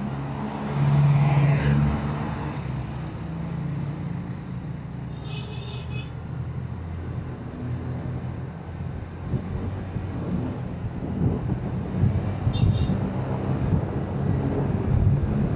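Motorcycle engine running steadily while riding through traffic, with wind on the microphone getting rougher in the second half. A passing motorcycle tricycle swells loud about a second in, and short high beeps come twice, about five seconds in and near the end.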